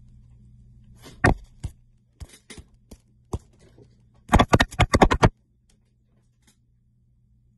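Handling noise from a phone held in the hand: scattered scrapes and knocks on the microphone, with a quick run of louder sounds about four seconds in, after which the sound cuts out completely.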